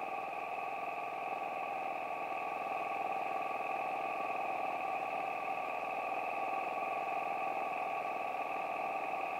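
1946 Aeronca Champ's light-aircraft engine and propeller at full power on the takeoff roll and climb-out of a touch-and-go, a steady drone heard through the headset intercom, getting slightly louder about three seconds in.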